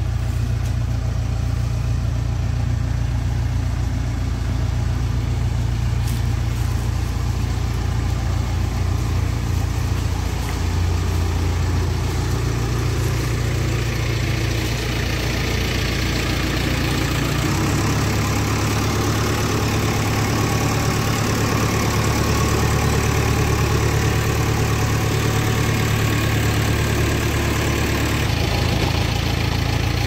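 JCB 3DX backhoe loader's diesel engine running steadily as the machine travels with a load of concrete blocks in its clamp attachment; the engine note shifts a little past halfway and brightens, easing again near the end.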